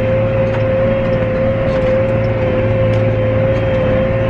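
Harvest machinery running at a steady drone, with a constant whining tone over the engine hum.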